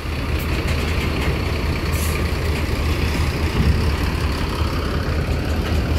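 Large diesel coach engine running as the bus moves past at low speed, a steady low rumble, with a short hiss about two seconds in.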